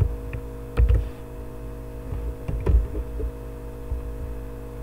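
Steady electrical hum made of several held tones, with a few soft clicks and knocks of keys being typed on a computer keyboard.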